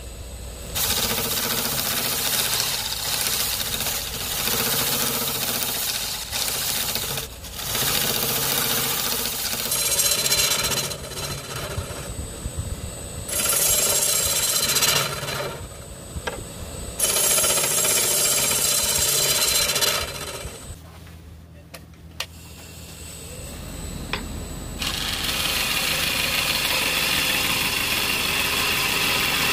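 Wood lathe spinning a Kaizuka juniper blank while a hollowing tool and then a gouge cut into it: a scraping, hissing cutting noise in stretches that change abruptly, with a quieter lull about three-quarters of the way through.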